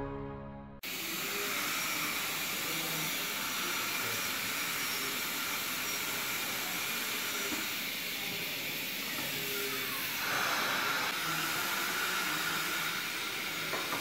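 Steady hissing rush of dental aerosol suction running during treatment in a dental surgery, about 70 dB on a sound-level meter. A short falling tone about nine seconds in and a brief louder stretch just after it, with a click near the end.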